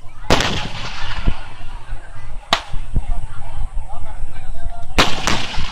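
Aerial firework shells bursting: a loud bang just after the start that rumbles on, another about halfway through, and two in quick succession near the end, with fainter booms between.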